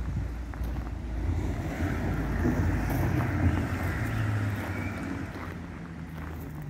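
The 490cc single-cylinder engine of a c.1952 Norton International idling steadily, with wind buffeting the microphone. It swells a little around the middle and eases off near the end.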